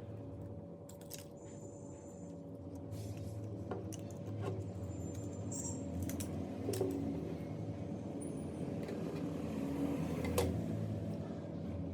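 Small tools and parts being handled on a phone during repair: scattered light clicks and taps, the loudest about ten seconds in, with a few brief high squeaks, over a steady low background hum.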